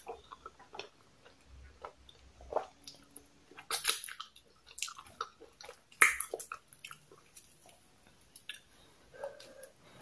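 Close-up mouth sounds of eating soft poundo yam swallow with slimy okra soup: wet chewing with irregular lip smacks and clicks, the loudest about four and six seconds in.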